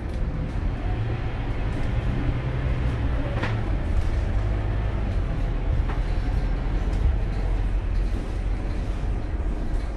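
Cabin sound of a Scania K230UB city bus under way: the steady low rumble of its diesel engine and drivetrain mixed with road noise.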